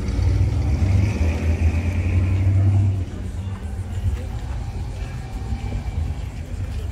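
A 1957 Chevrolet sedan's engine rumbling low as the car drives off. It is loudest for about the first three seconds, then drops suddenly to a quieter rumble.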